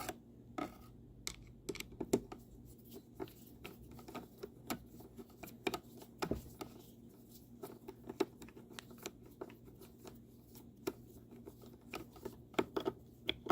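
Light, irregular clicks and scrapes of a hand tool and small metal parts being worked on a steering column assembly, as screws are snugged down until tight, over a faint steady hum.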